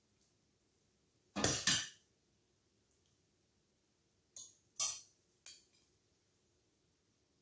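A metal ladle clinking against a stainless steel pressure-cooker pot and a china plate as beans are ladled out: a loud double clink about a second and a half in, then three lighter clinks between about four and a half and five and a half seconds.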